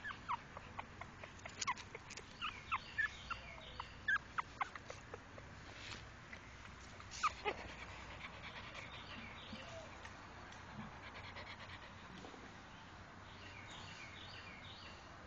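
Newborn puppies squeaking: a quick run of short, high squeaks in the first five seconds, one more at about seven seconds, then only a few faint ones.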